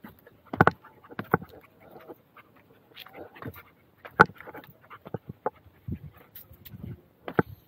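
Irregular knocks and scuffs of footsteps on loose rock and stones, with a German Shepherd dog panting and moving close by.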